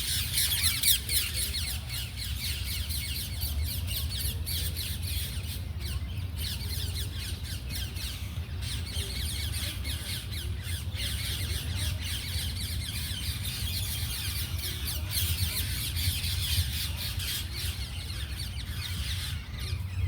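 A large flock of birds calling over one another without pause: dense, overlapping high chirps and chatter. A steady low rumble runs underneath.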